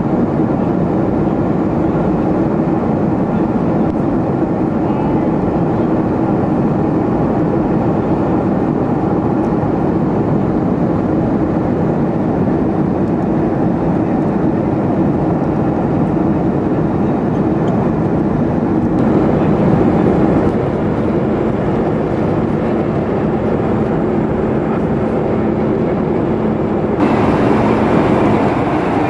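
Steady cabin noise inside a Boeing 737-500 with CFM56-3 engines in flight: an even rush of air and engine sound with a constant low hum. The sound shifts abruptly twice, about two-thirds of the way in and near the end.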